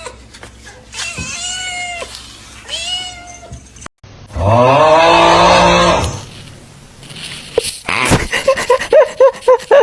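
Cat meowing: two short meows, then a loud, long drawn-out yowl, followed near the end by a quick run of short, loud calls.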